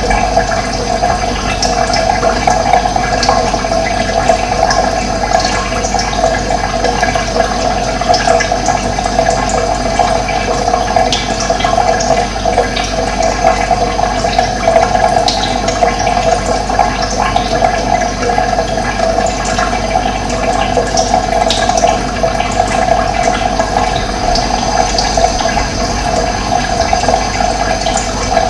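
Steady rush of running water, with brief high bird chirps scattered through it.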